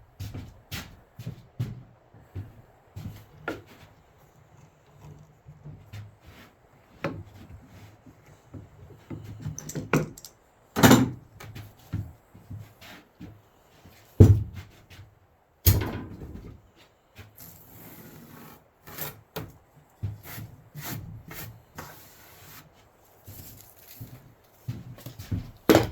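Scattered knocks, thumps and rubbing of wooden boards being handled and set down, with three louder thumps near the middle.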